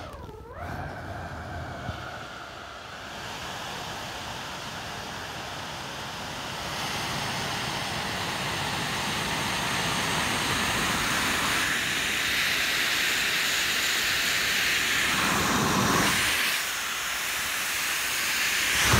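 Air hissing steadily out of the open valve of a large, soft vinyl inflatable beach ball as it deflates. The rush of air grows louder partway through.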